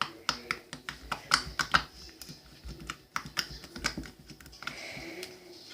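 Very sticky slime being poked and squeezed in the hands, giving quick irregular clicking pops, several a second, that thin out after about two seconds.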